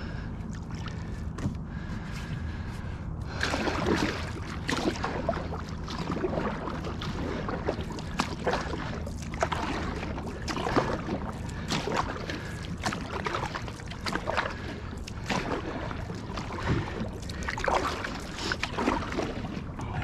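Wooden canoe paddle stroking through calm lake water. From about three seconds in there is a run of irregular splashes and drips.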